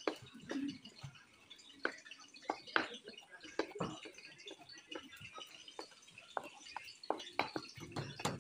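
Kitchen knife chopping raw meat on a plastic cutting board, mincing it for burger patties: irregular knocks of the blade hitting the board, a louder strike every second or so among softer taps.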